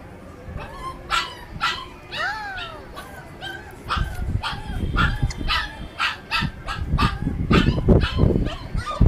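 Puppy yipping and whimpering in a string of short high calls, some sliding down in pitch, with dull knocks and handling noise from about four seconds in.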